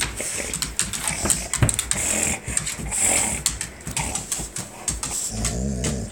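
Golden retriever mouthing and chomping on a rubber toy held in its jaws, making a run of irregular clicks and squishing sounds, with a brief wavering pitched sound near the end.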